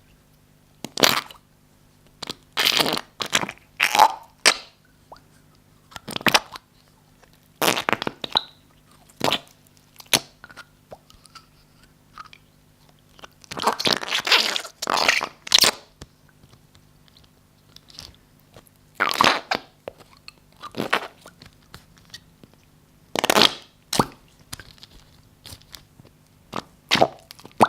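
Slime being squeezed and pressed by hand, giving off wet squelches, crackly pops and fart-like noises in short irregular bursts, with a longer squishing run about halfway through.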